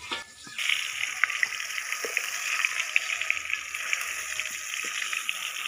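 Pointed gourds (potol) frying in mustard oil in a kadai: a steady sizzle dense with fine crackles. It starts after a brief dip about half a second in.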